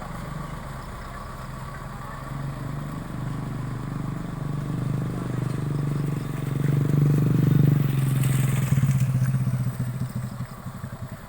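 A vehicle engine running, growing louder to a peak about seven seconds in and then falling away, with a brief clatter at its loudest.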